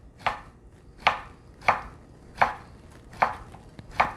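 Kitchen knife slicing Chinese sausage thinly, each cut ending in a sharp knock on the cutting board: six evenly paced strokes, a little under one and a half a second.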